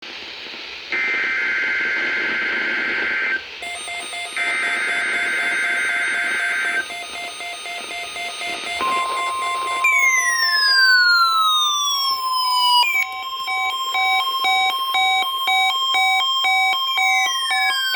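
Emergency Alert System weekly test on NOAA Weather Radio: two bursts of screeching SAME header data tones, then from about nine seconds in the steady 1050 Hz warning alarm tone. Over this a Sangean CL-100 weather alert radio sounds its own alarm, rhythmic beeps followed by falling sweeping tones and faster pulsed beeps.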